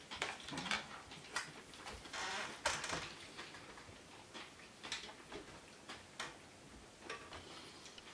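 Scattered light clicks and taps from things being handled on a desk, with a brief rustle about two to three seconds in.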